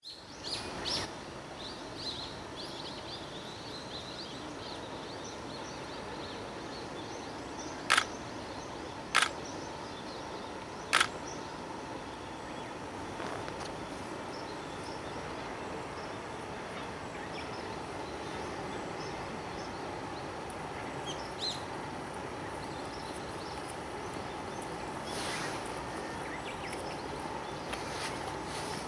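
EH500 electric locomotive hauling a freight train, a steady even rumble with no swell of a close pass. Birds chirp over it in the first few seconds and briefly later, and three sharp clicks come a second or two apart near the middle.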